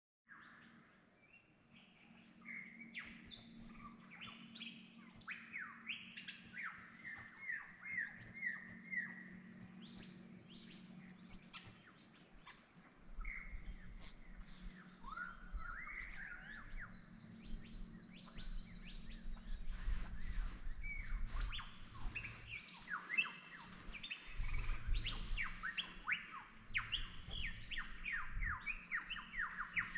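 A chorus of wild birds calling: many overlapping chirps and short falling whistled notes, repeated in quick series and busiest in the second half. A low rumble comes and goes from about halfway through.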